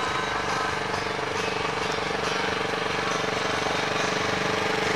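Small side-by-side utility vehicle's engine running steadily at low speed as it drives past, a rapid, even engine note.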